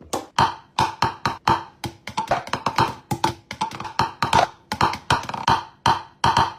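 A fast, uneven percussive beat of sharp clicks and knocks, several a second, with a faint steady tone running underneath.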